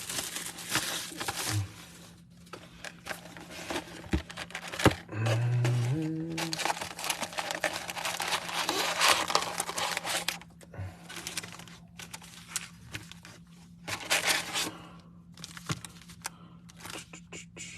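Plastic wrap tearing and crinkling as a sealed box of trading cards is opened, in irregular bursts with brief pauses, with cardboard and wrapped packs rustling as they are handled. A brief low tone sounds about five seconds in.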